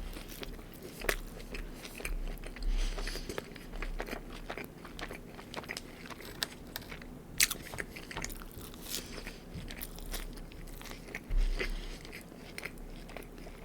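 Close chewing and biting of McDonald's Ranch Chicken Wrap: the crispy chicken crunches in irregular crackles, with a few louder crunches and low thuds between.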